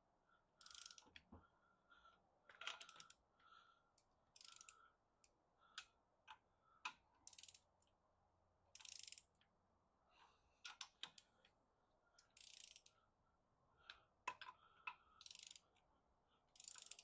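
Torque wrench ratcheting in short back-and-forth strokes as wheel lug nuts are tightened to 80 lb-ft in a star pattern. The strokes come every couple of seconds, with a few sharp separate clicks among them.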